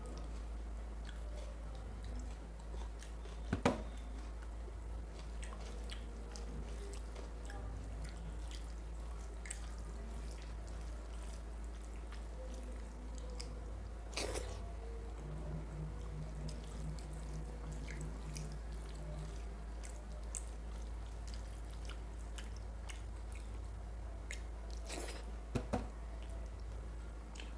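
Close-miked chewing and wet mouth sounds of a person eating mutton curry with rice, with scattered small clicks and a few sharper smacks, over a steady low hum.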